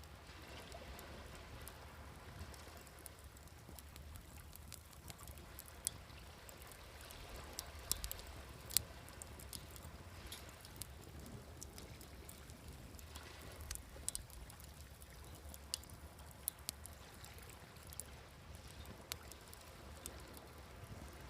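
Wood fire crackling, with scattered sharp pops over a steady wash of sea waves; a cluster of louder pops comes about eight seconds in and another around fourteen seconds.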